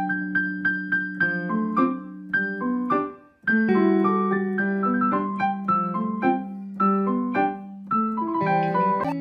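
Background piano music: a melody of short, distinct notes over a held low note, breaking off briefly about three seconds in.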